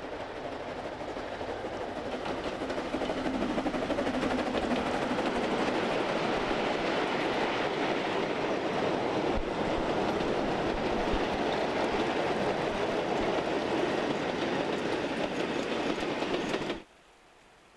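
Narrow-gauge steam train passing close: a long rake of slate wagons rattling and clattering over the rails. The noise builds over the first few seconds, holds steady, then cuts off suddenly near the end.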